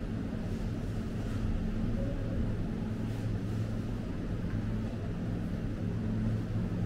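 Steady low electrical hum of a grocery store's refrigeration units.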